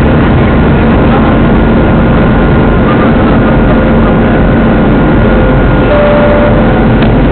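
Airliner jet engines running steadily, heard from inside the passenger cabin as a loud, even rush with a constant hum and whine.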